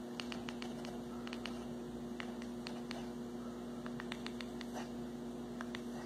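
Tabby kitten chattering: scattered soft clicks of its jaw and teeth in small clusters, the sound a cat makes while fixed on prey it cannot reach. A steady low hum runs underneath.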